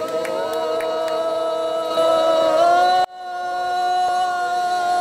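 Several voices singing long held notes together in a chant-like chorus; the sound breaks off sharply about three seconds in and comes back on a new sustained note.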